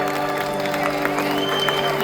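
Music with steady held notes over a crowd's background chatter, with a high tone rising and holding from about halfway through.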